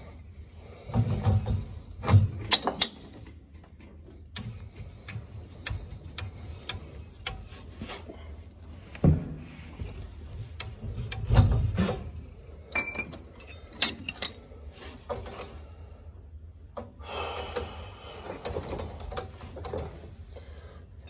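Hand work with a pipe wrench on a gas boiler's gas pipe and valve: scattered metal clicks, scrapes and knocks, with a few louder thumps spread through.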